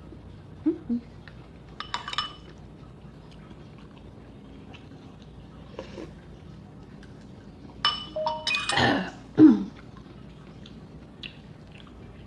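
Cutlery clinking and scraping against dishes while eating, in a few short clusters, the loudest about eight to nine seconds in. Short falling voice sounds, like a murmur or small burp, come near the start and just after the loudest clatter.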